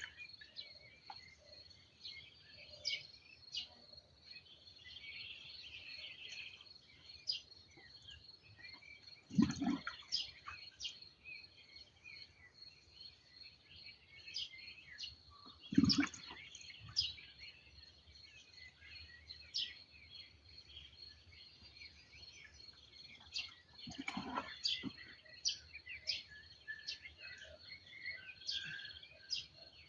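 Small birds chirping and singing over a steady high-pitched tone, with three dull thuds a little under ten seconds in, around sixteen seconds, and near twenty-four seconds.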